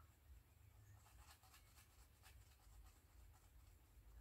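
Faint rubbing of a smooth round burnishing stone over the surface of a leather-hard clay pot, in quick, irregular short strokes that compact and polish the clay.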